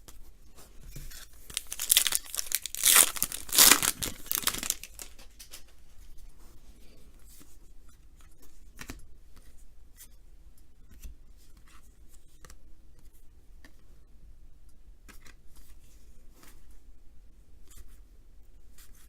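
Foil wrapper of a 2019 Topps baseball card pack being torn open: a few seconds of loud crinkling and ripping about two seconds in. After that come faint scattered ticks of the cards being handled.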